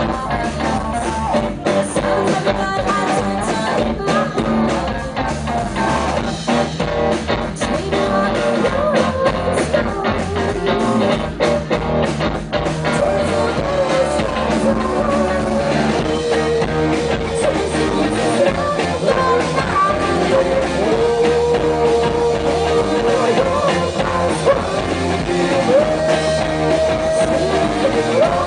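Live rock band playing: a woman singing lead over electric guitar, bass guitar and drum kit, with long held sung notes in the second half.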